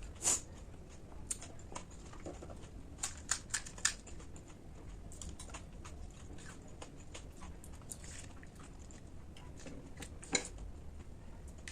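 Close-miked eating: scattered crisp crunches and clicks of a crunchy snack being bitten and chewed. The sharpest comes just after the start, with a quick run of four about three to four seconds in and another near the end.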